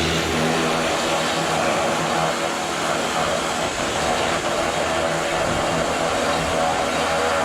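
Pressure washer running steadily, its motor and pump humming under the hiss of the spray.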